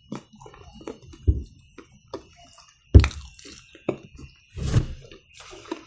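Close-miked chewing and mouth sounds of eating smoked chicken pulled apart by hand, with scattered small clicks and soft thuds. One sharp knock about three seconds in is the loudest sound.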